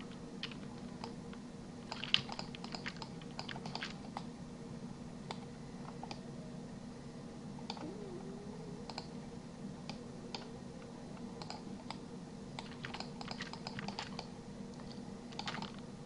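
Computer keyboard and mouse clicking in scattered bursts, over a steady low electrical hum.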